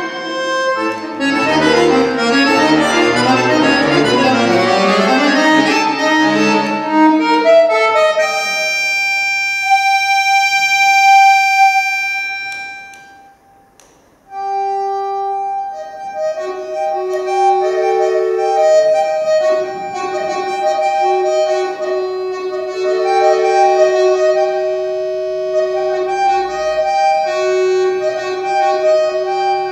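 Solo accordion playing dense clusters of many notes over deep bass. About eight seconds in, a single high note is held and fades almost to silence. From about fourteen seconds, sustained notes in a low and a higher voice waver on together.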